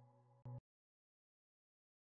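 Ambient background music fading out on sustained tones, with a brief swell that cuts off abruptly about half a second in, then digital silence.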